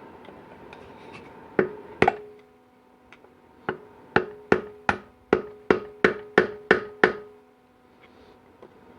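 Hammer blows driving the old torque converter seal out of a GM 4L80E transmission pump, each strike ringing briefly off the metal. Two blows, a pause, then a steady run of about ten blows at roughly three a second.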